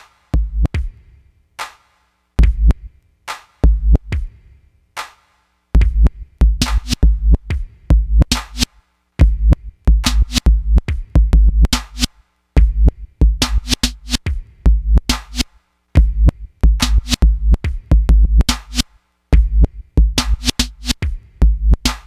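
Electronic music: a stop-start beat of deep bass hits and sharp clicks, cut up by abrupt silent gaps. It is sparse at first and becomes dense and busy from about six seconds in, with brief drop-outs.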